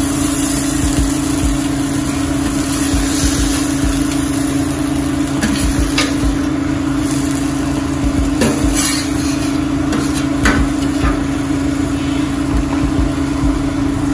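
Spoon scraping caramelized onion out of a pan into a small container, with a few scattered clinks and taps of the utensil, over a steady mechanical hum.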